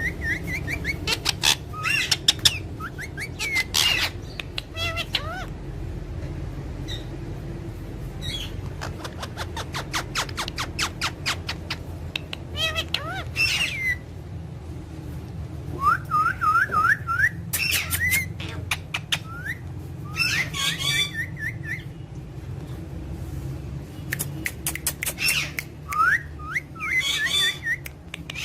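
Parrots chirping and giving short rising whistles, with runs of quick sharp clicks.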